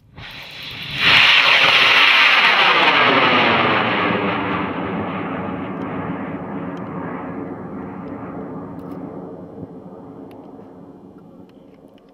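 Experimental N-class APCP rocket motor firing as a two-stage high-power rocket lifts off. A loud rushing noise jumps up about a second in, then fades steadily with a sweeping, falling tone as the rocket climbs away.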